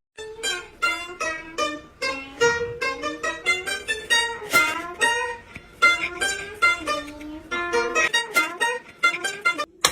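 Background music: a quick, bouncy melody of plucked strings, like a ukulele or guitar, that stops suddenly near the end.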